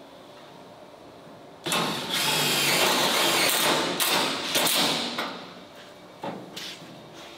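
Handheld grinder run against sheet metal at the edge of a car hood: a loud grinding with a faint whine that starts about a second and a half in, lasts about three and a half seconds, and is followed by one brief second touch.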